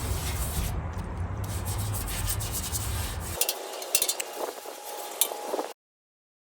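Metal prep being rubbed onto a bare steel mower deck: a steady scrubbing sound over a low rumble. About three and a half seconds in, it changes to lighter scraping with a few clicks, then cuts off suddenly to silence.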